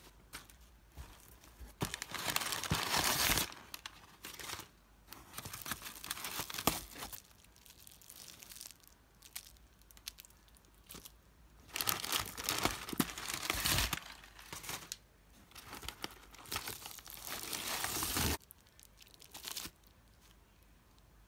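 Crumpled packing paper rustling and crinkling as it is pulled out of a cardboard box, in several bursts of a second or two with lighter handling between.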